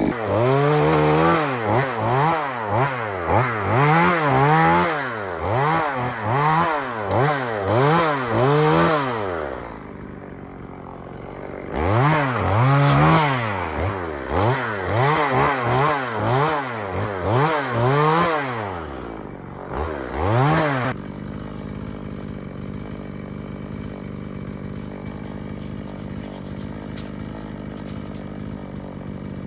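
EFCO two-stroke chainsaw revved in repeated pulses, about one a second, its pitch rising and falling with each, with a brief lull partway through. For the last third it settles to a quieter steady idle.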